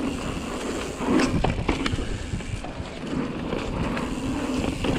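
Pivot Mach 5.5 full-suspension mountain bike rolling fast over dirt singletrack: steady tyre noise with scattered clicks and clacks from the bike.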